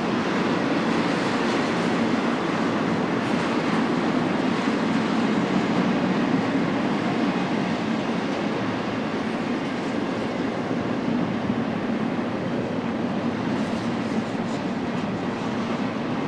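Cars of a BNSF intermodal freight train rolling past, a steady noise of steel wheels on rail.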